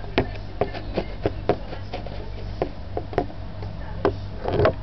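A run of irregular light clicks and knocks, about a dozen, over a steady low hum, with a short rustle near the end.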